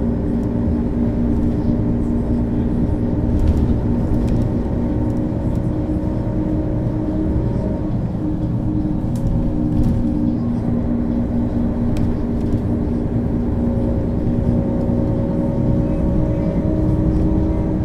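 Diesel engine of a 2000 Mercedes-Benz O 530 G Citaro articulated bus running under way, heard from inside the bus. The engine note holds steady, dips about halfway through, then climbs again toward the end.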